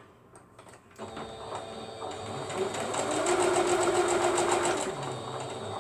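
Small sewing machine running, stitching a seam: it starts about a second in, builds up speed, runs steadily, then eases off near the end.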